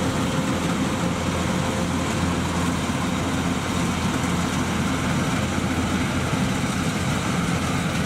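Combine harvester running steadily at work, its diesel engine and working machinery giving a constant, unchanging noise.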